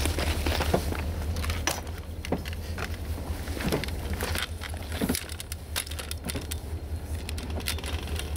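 Talgo Avril trainset rolling slowly past on the rails, its wheels giving many irregular clicks and a few short squeaks over a steady low rumble.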